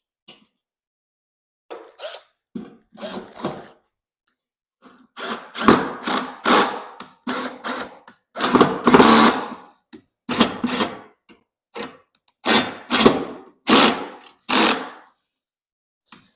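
Power drill driving stainless steel screws into wood, run in about a dozen short stop-start trigger pulls. The screws are going in tight because the pilot holes were drilled too small.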